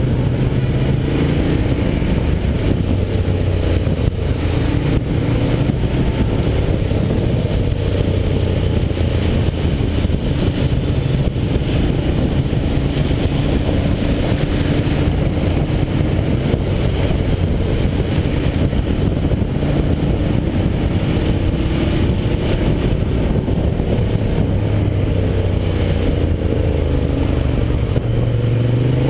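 Ducati Diavel's L-twin engine running in city traffic as heard from on the bike, its note rising and falling with the throttle several times as it pulls away and slows.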